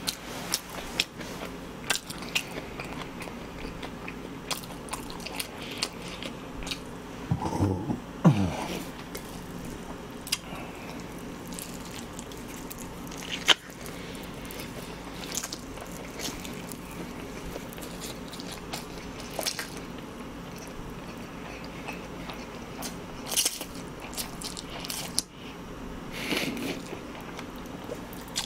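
Close-miked eating of jaengban-guksu, a tough, stiff mixed-noodle dish: slurping in noodles and chewing them, with many short, sharp mouth clicks and a few louder ones.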